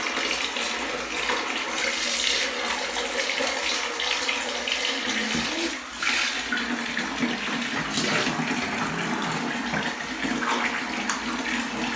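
Water running from a hand-held shower into a bathtub, a steady rush that dips briefly about halfway through.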